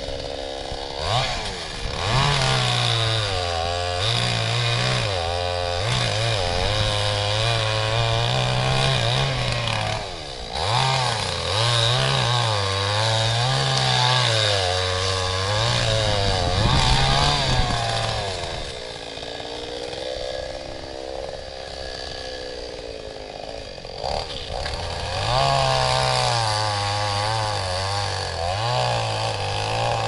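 Two-stroke chainsaw cutting into a tree, its engine note wavering up and down under load. It eases off for several seconds past the middle, then revs up again near the end.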